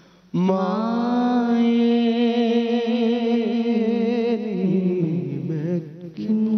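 A man singing a Punjabi naat into a microphone: one long held note with vibrato after a brief pause, then a short break near the end before the next phrase starts.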